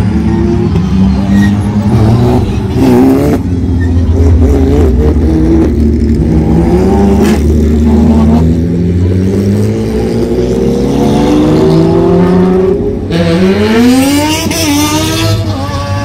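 Race car engine driven hard up a hillclimb: its pitch climbs steadily, falls back at gear changes, and rises sharply again after a shift near the end.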